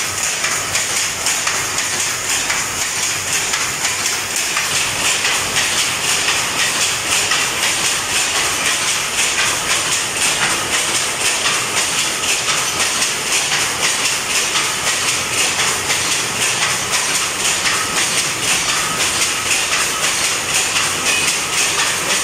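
Jacquard power looms running and weaving saree silk: a loud, fast, steady mechanical clatter with a hiss over it.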